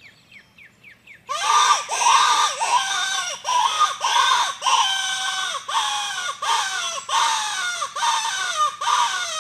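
Closed-reed rabbit distress hand call blown hard by mouth. Starting just over a second in, it gives a rapid string of squeals, each falling in pitch, about two a second. It imitates a dying rabbit to call in coyotes.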